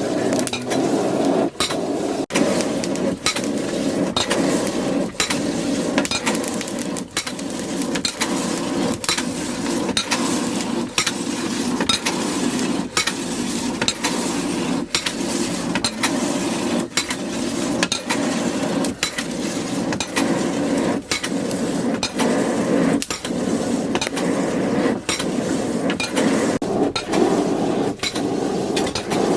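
Blacksmith's hand hammer striking steel from a tractor plough disc on an anvil: sharp, repeated blows at about one to two a second, over a steady low rushing noise.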